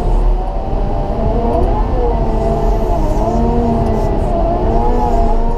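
Cat 926M wheel loader's diesel engine running under load with a deep rumble, its pitch wavering gently up and down as it pushes snow with its MetalPless plow.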